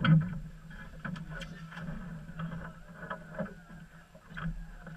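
Fishing boat on the water: a steady low hum with scattered knocks on the hull and deck, the loudest right at the start.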